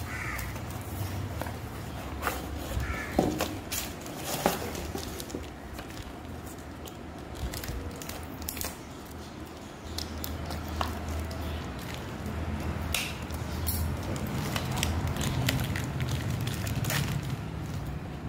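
Thin plastic packaging crinkling and rustling in the hands, with scattered sharp clicks and crackles as a clear zip pouch holding a wristwatch is handled and opened.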